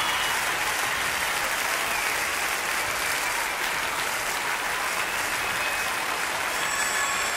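Large theatre audience applauding: dense, steady clapping.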